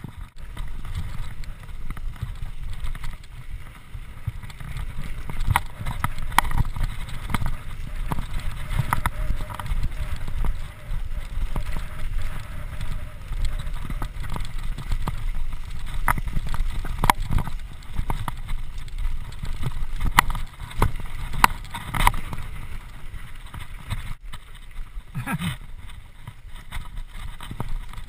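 Mountain bike riding fast down a rough grass and dirt trail: a steady low rumble of wind and tyres, with frequent sharp knocks and rattles as the bike hits bumps.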